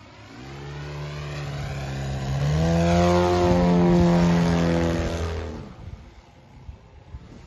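Engine of a large radio-controlled Piper J3 Clipped Wing model (Valach 170) flying a low pass: the note grows louder, steps up in pitch about two and a half seconds in, then falls in pitch as the plane goes by and fades out about six seconds in.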